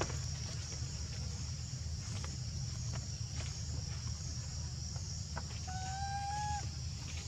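A baby monkey gives one drawn-out, slightly rising cry about six seconds in, over a steady high drone of insects and a low rumble.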